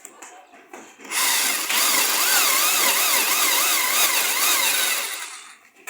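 CNC router spindle cutting wood: a loud hiss and whine that starts about a second in and fades near the end, its pitch wavering up and down about twice a second as the cut goes on.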